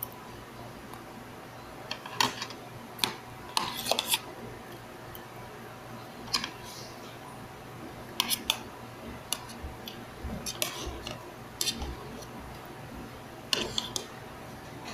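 Metal spoon and fork clinking and scraping against a plate during a meal of rice, in scattered sharp clicks every second or so.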